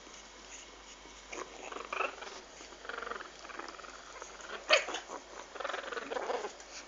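English bulldog puppies making short, irregular sounds, with one sharp click a little under five seconds in.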